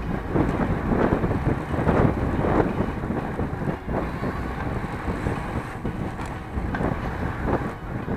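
Wind buffeting the microphone, with rushing road noise, from a bicycle ridden at racing speed; the noise swells and dips in gusts.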